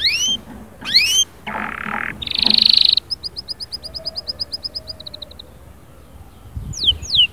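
Domestic canary singing. It opens with quick rising whistles, then gives a harsh buzzy roll and a loud rattling note, then a fast trill of about nine or ten repeated high notes a second. After a short pause, a run of falling whistled sweeps starts near the end.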